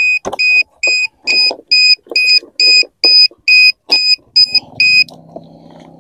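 Plug-in LiPo battery voltage alarm beeping in a high, even tone about twice a second: the warning that the flight battery is run down. It cuts off about five seconds in, with some handling clicks around it.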